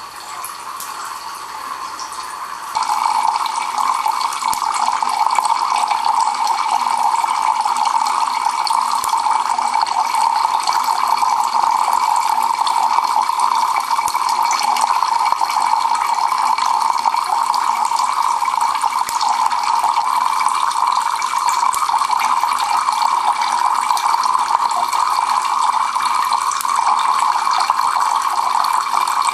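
Water streams falling from a Kelvin water dropper's two collectors into metal cans: a steady splashing trickle that gets louder about three seconds in.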